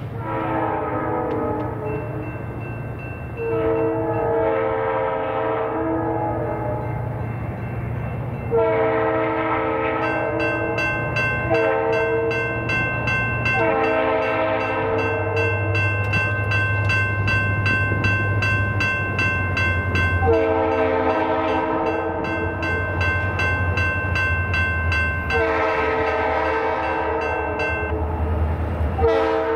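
An EMD SD45T-2 diesel locomotive's horn sounds a long series of chord blasts, some long and some short, over the rumble of the diesel engine. A bell rings steadily through most of the sequence.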